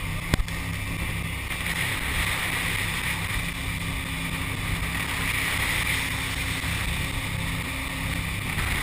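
Jet boat running at speed over a shallow river: a steady engine drone under the rush of water and wind past the hull. A single sharp knock comes just after the start.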